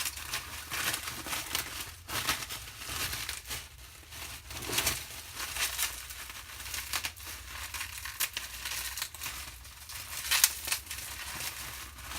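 Shipping wrapping of a watch parcel being torn open and crumpled by hand: irregular crinkling and tearing rustles.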